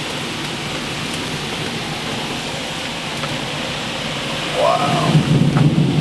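Heavy rain and strong wind of a severe thunderstorm: a steady rushing noise that grows louder about five seconds in.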